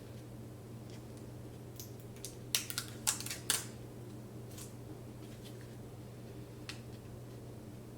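Plastic parts of a Momcozy breast pump clicking and snapping as they are pulled apart, with a quick cluster of sharp clicks about two and a half to three and a half seconds in and a few single clicks before and after. A steady low hum lies underneath.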